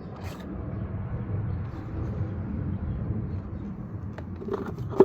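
Steady low rumble with a few light clicks, then one sharp knock near the end.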